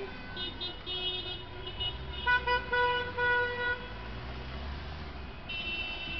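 Several car horns honking in celebration of a football win: lighter horn toots early on and near the end, and a run of four short, louder honks a little over two seconds in, over the low rumble of passing traffic.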